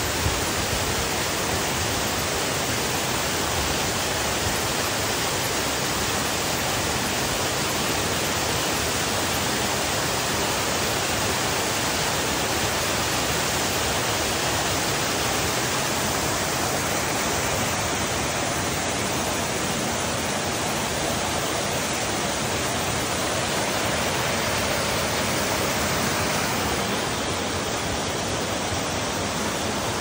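Yōrō Falls waterfall: a loud, steady rush of falling water.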